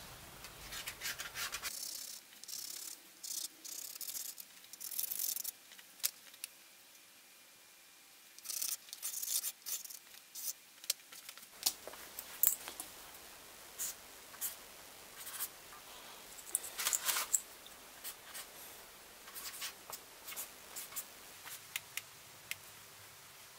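Metal scribe scratching along sheet steel coated in blue layout dye, marking out a wheel-arch outline in many short strokes, with rubbing and light ticks of the template and sheet being handled.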